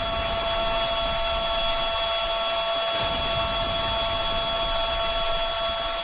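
Outdoor warning siren holding a steady chord of several pitches over a dense, rain-like hiss.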